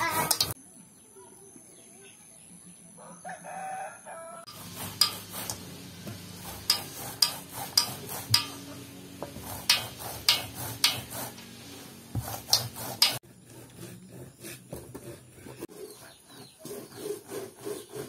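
Fresh corn cobs rubbed hard on a flat metal grater over a steel bowl: rasping scrapes, about two strokes a second, starting about four seconds in and stopping about thirteen seconds in. Chickens cluck in the background.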